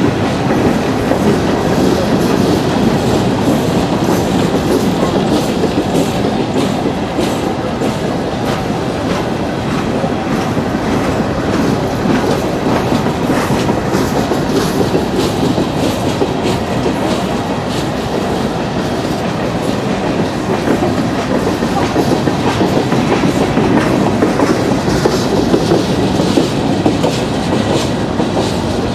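Steel wheels of a long string of coal hopper cars rolling past on the rails: a steady, loud rumble with frequent sharp clicks.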